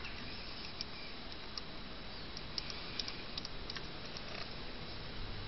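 Light, irregular ticks and clicks from a pencil's rubber eraser gently rubbing the laser lens of a DVD player's optical pickup.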